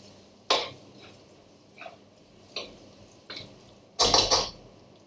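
A cooking utensil knocking and scraping against a frying pan while spices are stirred and fried in oil: a few single knocks, then a louder quick run of clattering strokes about four seconds in.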